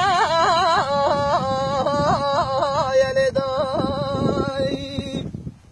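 A male folk singer's voice, Kurdish bard style, holding one long ornamented phrase with rapid wavering trills. It stops about five seconds in. A steady low rumble runs beneath it.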